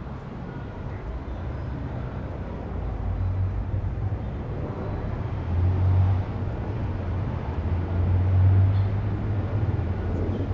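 Street traffic: the low rumble of a car engine approaching, swelling a few times.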